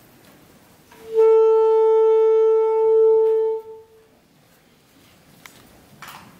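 Alto saxophone holding a single steady tuning note for about two and a half seconds, then stopping.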